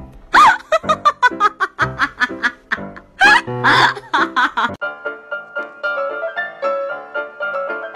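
Background music: a track with quick, sharp percussive hits changes about five seconds in to gentle piano music.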